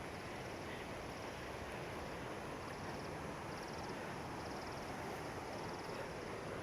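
Steady rushing of a mountain stream's water, an even, unbroken noise. Faint high-pitched trills, likely insects, repeat a little less than once a second above it.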